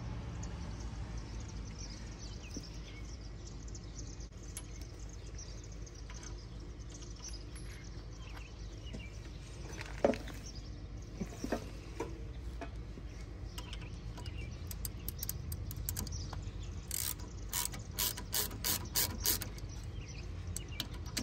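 Hand ratchet wrench clicking in quick short runs near the end, working on the timing set at the front of the engine. Before that there is only a low steady hum and two light metallic knocks about halfway.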